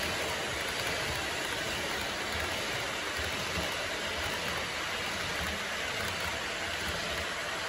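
HO-scale model freight train rolling past on the layout track: a steady rolling noise from the wheels of many cars.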